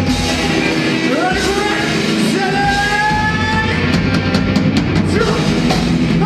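Rock band playing live on electric guitar, bass guitar and drum kit, with singing; a quick run of drum hits comes a little after halfway.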